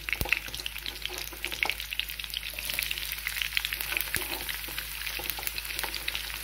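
Chopped onions sizzling in hot oil in a frying pan, a steady crackle of small pops, with a couple of sharp knocks, one just after the start and one about four seconds in.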